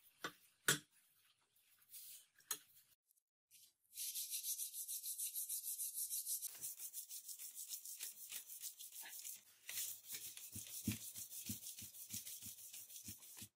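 Steel knife blade being hand-sanded with P120 sandpaper: quick back-and-forth hissing strokes that begin about four seconds in, after a few handling knocks, and stop abruptly near the end.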